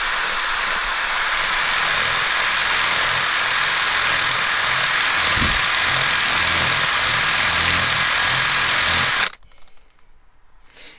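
Cordless drill running steadily with a steady high whine, its number 8 bit grinding away the plastic to widen a hole in an armrest bracket; it stops abruptly about nine seconds in.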